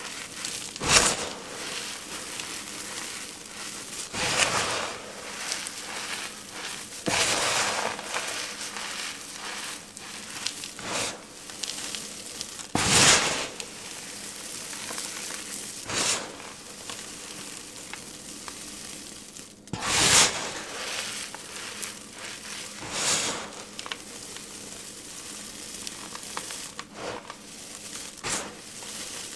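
Clumps of packed powder crushed and crumbled between the fingers: about ten loud crunches a few seconds apart, with a soft crumbling hiss between them as the powder sifts down.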